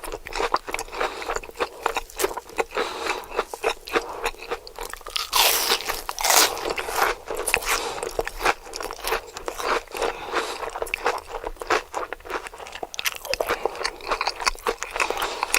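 Close-up eating: crisp food being bitten and chewed, a dense run of rapid crunches with two louder, longer crunches about five and six seconds in.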